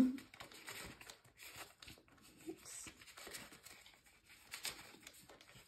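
Faint rustling and crinkling as paper cash envelopes and Canadian polymer banknotes are handled, in a string of soft, irregular rustles.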